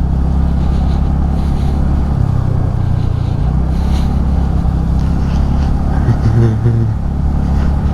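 Motorcycle engine running steadily at low speed on a rough, muddy road, with a continuous low drone and road noise.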